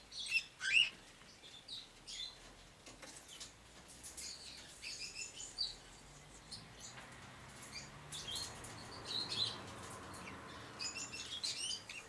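Caged parakeets and cockatiels chirping: many short, high chirps at irregular intervals, the loudest about a second in.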